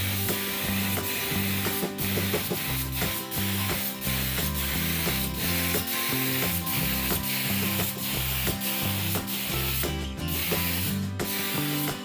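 A gravity-feed air spray gun hisses as it sprays wood finish onto a door frame. The hiss breaks off briefly a few times, most clearly near the end.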